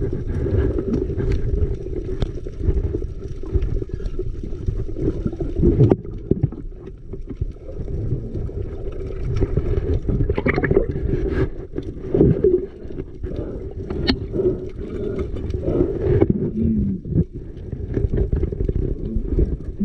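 Muffled rushing water and movement picked up by a camera underwater, with scattered clicks and knocks.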